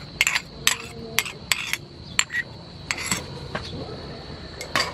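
River prawns bubbling in sauce in a frying pan, with irregular sharp clicks and clinks through it as oyster sauce is poured in from a bowl.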